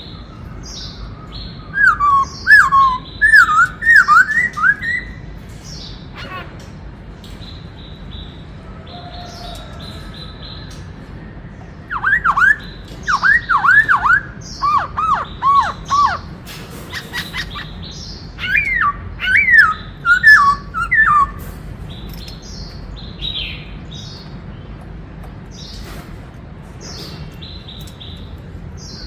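Black-throated laughingthrush singing: three loud phrases of rapid whistled notes that sweep down in pitch, starting about two, twelve and nineteen seconds in, with softer high chirps in between.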